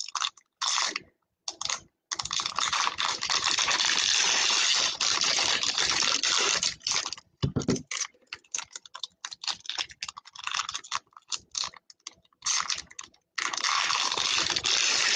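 Foil trading-card pack wrapper crinkling and tearing as it is pried open at the top and peeled around, an irregular crackly rustle broken by several short pauses.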